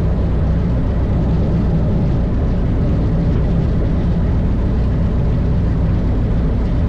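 Acro Sport II biplane's piston engine and propeller running steadily during the rollout just after landing.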